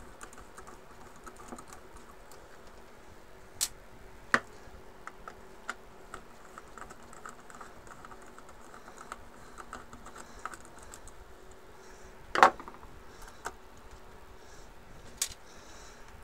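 Light clicks and ticks of a screwdriver turning screws out of a 3D printer's carriage plate, with a few sharper knocks, the loudest about twelve seconds in.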